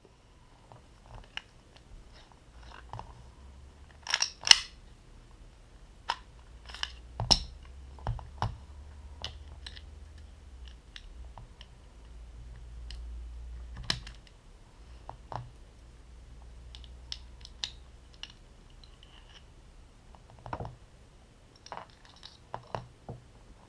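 Scattered clicks and clacks of an airsoft Glock replica's parts being handled and taken apart, with a few louder sharp clacks, over a low steady hum.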